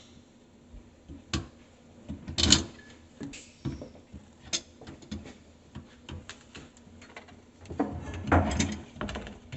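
Scattered clicks and knocks of tools and parts being handled during a garbage disposal install, with a longer scraping, rustling stretch about eight seconds in.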